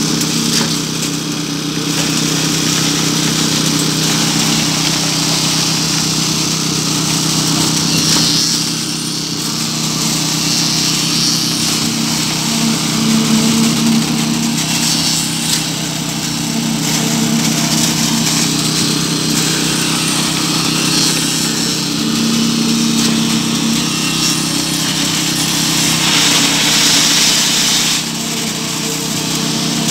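Steady drone of an engine driving the concrete-pouring machinery during a slab pour, with a shifting hiss over it that swells now and then.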